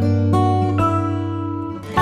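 Background music played on acoustic guitar, plucked notes and chords changing about every half second.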